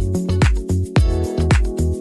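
Background music with a steady beat: a deep drum hit about twice a second over a bass line and sustained chords.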